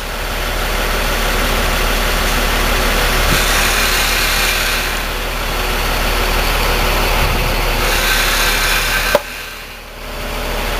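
Construction crane's engine running steadily. About nine seconds in the sound cuts off sharply with a click, then builds back up.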